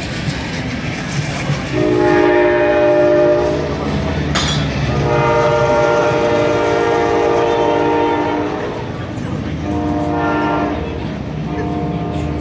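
Amtrak locomotive air horn sounding a chord in the grade-crossing pattern of long, long, short, long, with the passing train's low rumble underneath.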